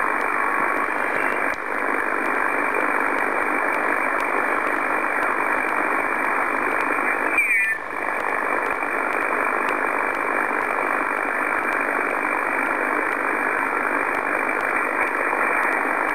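Amateur HF transceiver receiving in upper-sideband mode on the 15-metre band, giving a steady, muffled hiss of band noise while the dial is tuned up the band. About seven and a half seconds in there is a brief warbling chirp and a short dip in the hiss.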